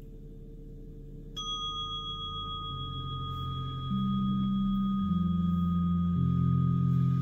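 A single struck meditation chime, the first gong that signals the start of the practice, rings out about a second and a half in and keeps ringing evenly. Under it runs a low ambient music pad whose notes change slowly.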